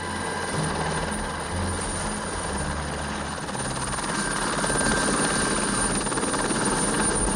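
Small light helicopter approaching and setting down, its rotor chop and engine running steadily and growing louder about halfway through as it comes in to land.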